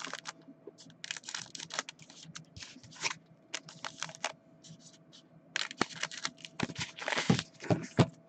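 Foil trading-card packs crinkling and clicking as they are handled and shuffled on a table, with a few louder knocks near the end as packs are set down on the stack.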